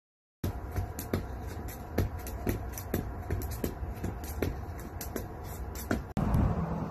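Skipping rope: the rope slaps the concrete in sharp clicks about twice a second, with lighter ticks between. Near the end the sound cuts abruptly to a steady low rumble.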